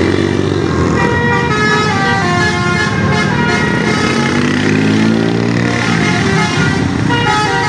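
Bus 'telolet' multi-tone horn playing a tune of short stepped notes over the low running of the engine, which revs up around the middle.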